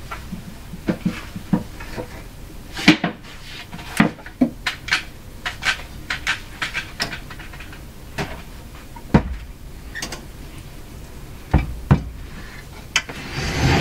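Scattered knocks and clicks of handling, then heavy thumps about nine and twelve seconds in, and a scraping slide near the end, as the big wooden Philco 48-1826 radio-phonograph console cabinet is set down on a wooden workbench and pushed into place.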